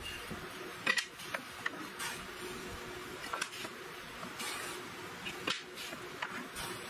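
Wooden boards handled on a wooden workbench: light knocks and clicks as a board is picked up, set down and moved, with a few short scraping or brushing sounds across the wood.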